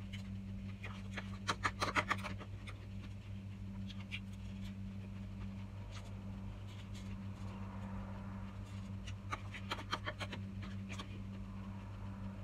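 Metal spoon clicking and scraping against small plastic bowls while scooping corn kernels, in two short flurries, about a second and a half in and again near the end. A steady low hum runs underneath.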